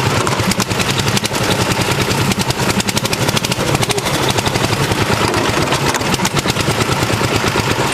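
Terra Jet amphibious ATV's engine running steadily, its exhaust a rapid, even stream of pulses.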